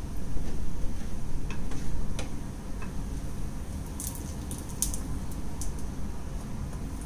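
Bread slice frying in ghee in a nonstick frying pan: scattered sharp pops and ticks, with a louder cluster about four to six seconds in, over a steady low hum.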